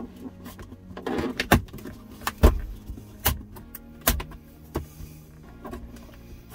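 Plastic trim clips of a Ford Ranger's center-console switch panel clicking and snapping as the panel is pried up and worked loose: a short rustle, then a handful of sharp clicks, the loudest about two and a half seconds in. A low steady hum runs underneath.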